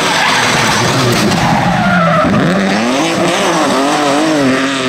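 BMW E36 rally car braking into a corner and sliding through it, with tyre noise. From about two seconds in, its engine revs rise and fall several times as the throttle is worked through the slide.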